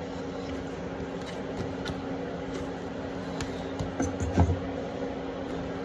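Bread dough being kneaded by hand on a counter: soft scattered knocks, with one heavier thump about four seconds in, over a steady low hum.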